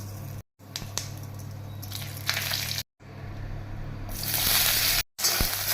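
Food frying in hot oil in a pan, a hiss that swells loud about four seconds in, with clicks of a utensil stirring. A steady low hum lies beneath, and the sound is broken by short silent cuts.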